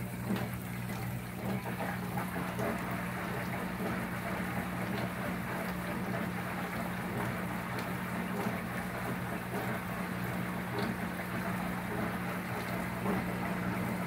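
Small portable countertop dishwasher running its strong wash. Its submersible, magnet-driven impeller pump hums steadily while water sprays and splashes over the dishes and against the inside of the door window.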